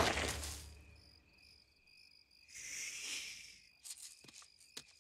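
Night-time jungle sound effects from a film soundtrack: crickets chirping in an even, pulsing rhythm as the orchestral score dies away in the first second. There is a brief rustle of brush about halfway through and a few sharp clicks near the end.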